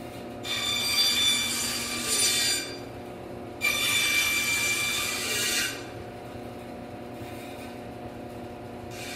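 Bandsaw running with a steady motor hum while its blade cuts into a block of wood twice, each cut lasting about two seconds with a high whine from the blade; between and after the cuts only the idling saw is heard.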